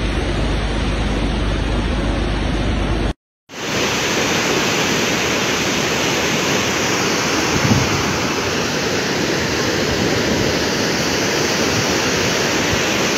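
Swollen, muddy floodwater rushing past in a steady, loud roar, with wind on the microphone. The sound drops out for a moment about three seconds in, then resumes.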